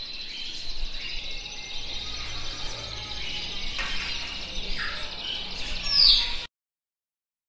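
Birds chirping and trilling over a low background hum, with a loud high chirp sweeping down about six seconds in. The sound then cuts off abruptly to silence.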